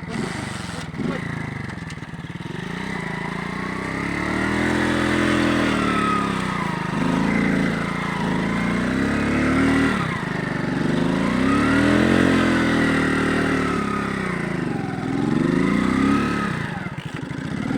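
Alpha moped's small engine revving up and down several times, its pitch rising and falling in repeated waves.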